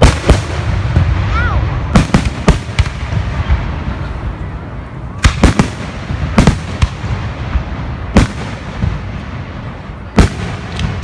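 Fireworks going off: a dozen or so sharp bangs, some in quick pairs and triples, every couple of seconds over a low rumble.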